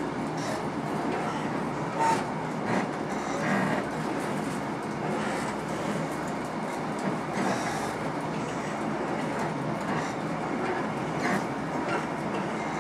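Passenger train running at speed, heard from inside the carriage: a steady rumble of wheels on rails with occasional short clacks from the track.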